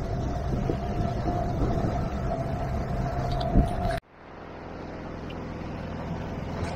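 Outboard motor of a MacGregor 26X running steadily under way, a constant drone with a held tone, over wind and water rushing past the hull. About four seconds in the sound cuts off abruptly and comes back quieter, as a low steady hum.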